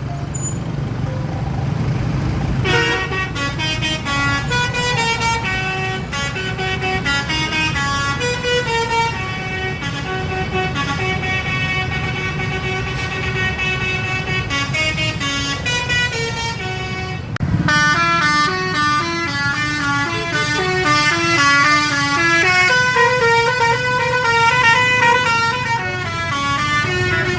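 Bus telolet horn, the multi-tone musical air horn of a tour bus, playing a fast stepping melody over a steady low rumble. The tune starts about three seconds in, breaks off for a moment about two-thirds of the way through, and a new run of notes follows.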